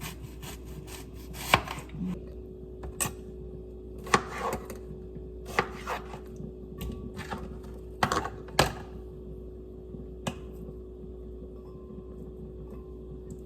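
Knife cutting raw beef on a cutting board: irregular sharp knocks of the blade against the board, a few close together, then spaced every second or two, with a steady hum underneath.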